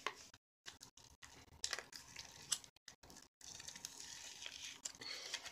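Faint, scattered crinkling and small clicks of a small plastic slime packet being handled and opened.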